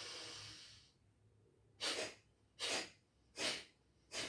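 Kapalbhati breathing through the right nostril: a deep inhale through the nose ends about a second in, then four short, forceful exhalations follow, a little more than one a second.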